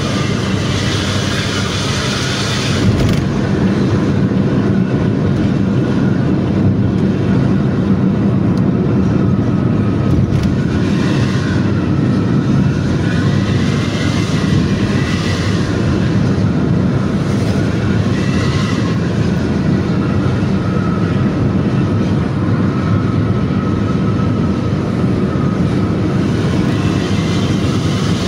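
Steady low rumble of driving, heard from inside a car close behind a diesel intercity bus: the bus's engine and exhaust together with the car's own road noise. A faint whine rises and falls a few times around the middle, as the revs change.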